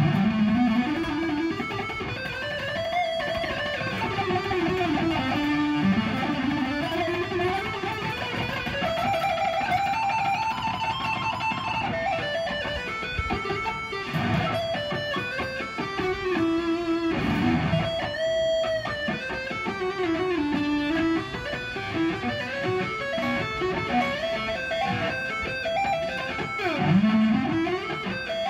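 Red Ibanez electric guitar played lead: a run of sustained notes in which the pitch swoops down and back up several times.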